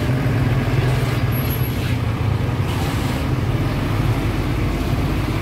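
Street traffic noise: motor vehicle engines running close by, a steady low hum under a constant wash of road noise.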